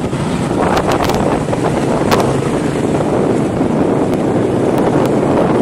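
Wind rushing over the microphone on a moving motorbike, mixed with the bike's engine and road noise, with a few sharp crackles of wind buffeting.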